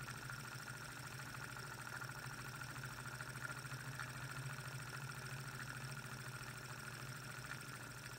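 KONTAX KS18 beta-type Stirling model engine running steadily: an even, fast mechanical whir from its displacer, piston and linkage.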